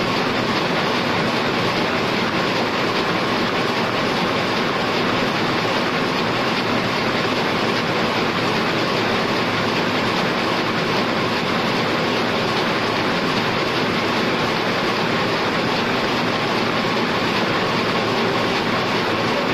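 Heidelberg SORMZ two-colour sheet-fed offset printing press running steadily, a continuous dense mechanical noise with no pauses.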